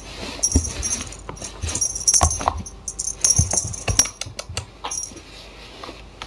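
A small jingle bell shaking in irregular bursts, with sharp knocks and soft thumps in between; the jingling stops about five seconds in.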